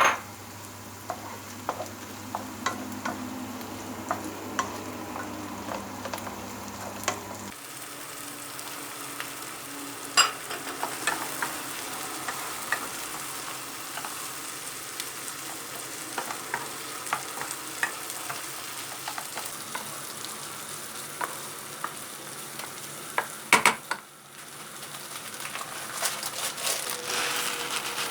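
Food sizzling as it fries in a pan, stirred with a utensil that clicks and taps against the pan many times.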